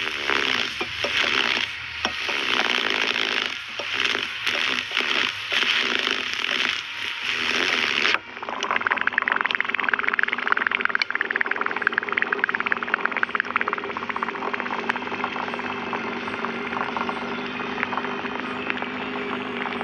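Liquid in a drinking glass fizzing and sizzling around a ball held down in it with tin snips, in uneven surges of hiss. About eight seconds in this changes to a steadier crackling fizz, full of tiny pops, as the froth spits droplets out of the glass.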